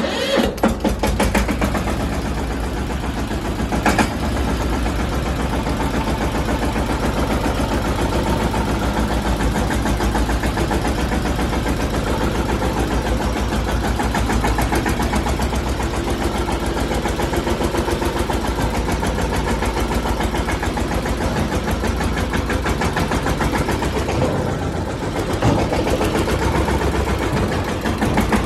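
Mahindra Yuvraj 215 tractor's single-cylinder diesel engine running with an even, rapid pulsing beat. A single sharp click sounds about four seconds in, and the engine note dips briefly and picks up again near the end.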